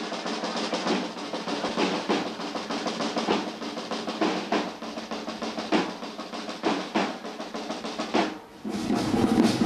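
Snare and bass drums of a cornet-and-drum band playing a march with rolls. Near the end they break off briefly, then the band comes back in louder and fuller.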